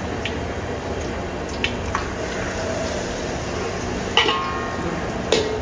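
A steel ladle knocks against a steel wok a few times, the sharpest knocks with a short metallic ring about four seconds in and near the end. Under it runs a steady rushing background noise.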